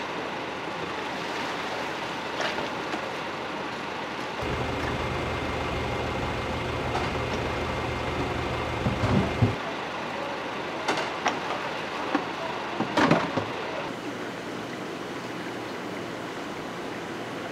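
Steady rush and bubbling of aerated water in live seafood tanks, with a few short, sharp splashes about halfway through as a dip net is worked through the water.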